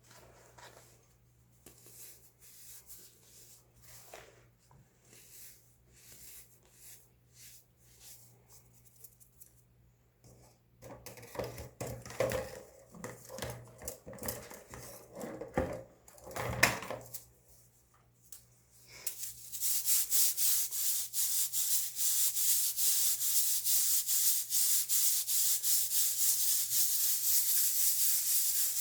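Baking soda being crushed and crumbled. First come faint, scattered crackles, then louder crunches for several seconds. For the last third there is a dense, continuous, high-pitched crackling hiss.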